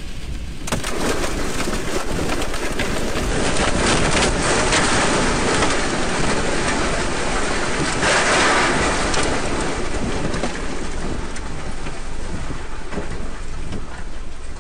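Tornado winds with rain and hail lashing a stopped truck, heard from inside the cab: a loud rushing with countless quick hits of hail and debris on the body. It swells to its loudest about eight seconds in.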